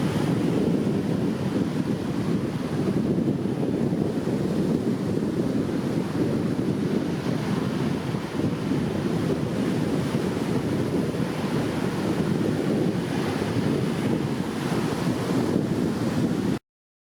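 Wind blowing in a steady low rush with slight swells, cutting off abruptly near the end.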